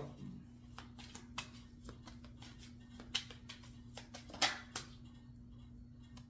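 Tarot cards being handled and laid out: scattered light clicks and snaps, a few sharper ones about a second and a half, three, four and a half and five seconds in, over a faint low steady hum.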